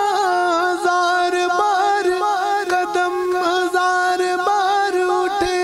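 Male naat singer holding a long, ornamented note without words, over a steady held drone with light percussive clicks.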